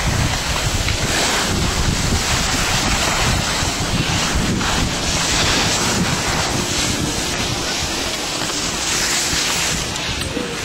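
Wind buffeting the microphone of a camera carried by a moving skier, a steady heavy rumble, mixed with the hiss of skis sliding over packed snow.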